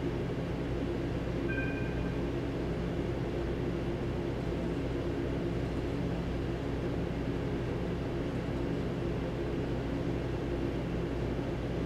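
Steady low hum of the sleeper train and its locomotive standing at the platform. About a second and a half in there is a short, high toot from the locomotive's whistle.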